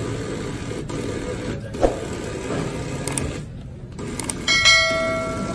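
Steady background hubbub with a single knock about two seconds in; near the end two clicks, then a bright bell chime that rings and fades over about a second, the sound effect of an on-screen subscribe-button animation.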